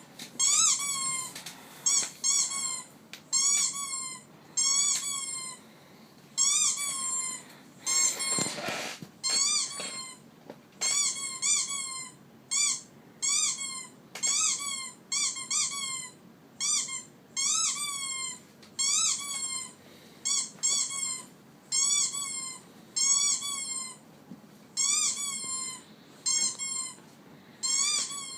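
A dog making a high-pitched squeak, repeated steadily about once every 0.8 seconds. Each squeak is short and wavers downward. A brief rustle or bump comes about eight seconds in.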